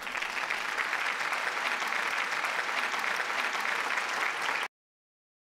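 A crowd applauding with steady, dense clapping that cuts off abruptly near the end.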